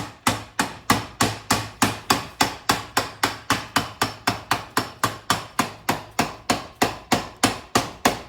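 Hammer striking repeatedly at an even pace, about three and a half blows a second, tapping the planetary gear set loose from inside an NP242 transfer case.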